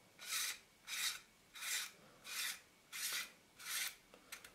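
Finger in a finger cot rubbing round the front name ring of an AF Nikkor 35mm f/2 lens as the ring is turned into its thread: six even rubbing strokes about two-thirds of a second apart, then a few faint ticks near the end.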